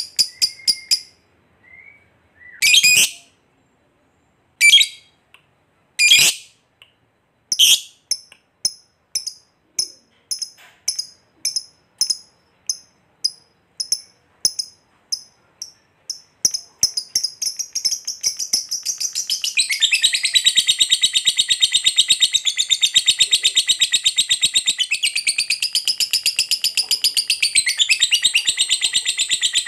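A lovebird calling: a few loud, sharp squawks, then a run of short chirps about two a second, then from about halfway a long, fast, unbroken chattering trill, the 'ngekek panjang' song.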